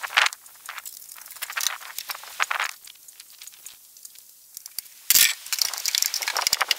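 Screws and sheet metal being handled while screws are put into a pellet smoker's metal cabinet panel: scattered light clicks, scrapes and rattles, with a louder knock about five seconds in, then a run of quick rattling.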